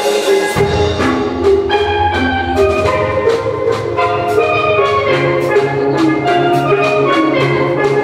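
Steel band playing a tune on steelpans: rapid pitched notes and chords from the pans, with a low bass part coming in about half a second in and steady percussion strikes keeping the beat.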